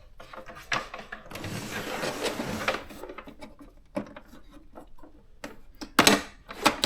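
Handling of a portable typewriter being moved on a table: scattered knocks and clicks, a scraping slide lasting about a second and a half, and two louder knocks near the end.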